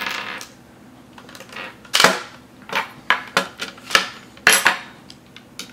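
A series of sharp clicks and knocks, the first, about two seconds in, the loudest, as the plastic cup holder assembly and small hand tools are handled on a wooden tabletop.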